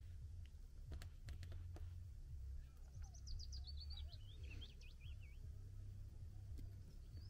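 A small songbird singing a quick run of high notes that falls in pitch, about three seconds in, over a low steady rumble.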